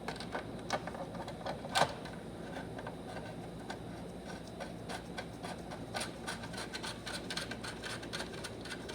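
Small metal and plastic transmission parts clicking and rattling as they are handled and fitted into place, with one sharp, loud click about two seconds in and a quick run of clicks in the second half.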